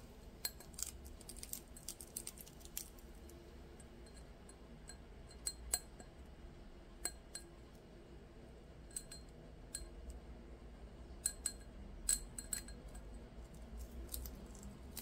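Scattered small clicks and clinks of a hand tool against a glass champagne flute as the vinyl stencil is picked off the etched glass.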